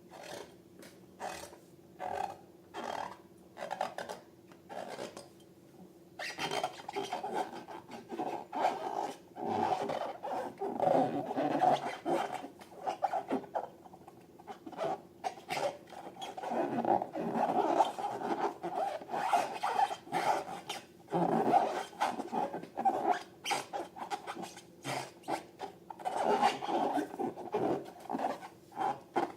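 Latex balloons squeezed and rubbed by hand, giving rubbery squeaks and rubbing: a few short separate squeaks at first, then from about six seconds in a near-continuous run of rubbing and squeaking.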